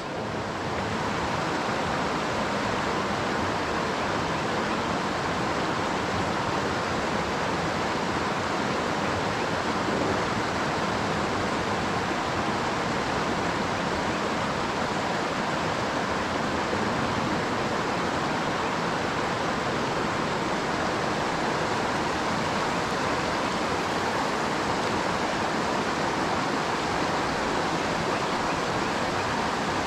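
Creek water flowing, a steady, unbroken rush.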